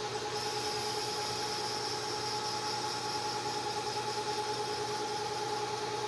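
Axis servo motors of a LeeJay three-axis CNC mill running under program control, a steady whine with several held pitches over a low hum. The servos sound healthy.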